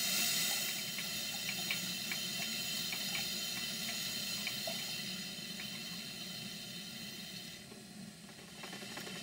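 Steady hissing from a live-steam model steam plant, a Stuart Twin Victoria with a Southworth duplex steam pump, with a few faint ticks early on. The hiss eases off near the end.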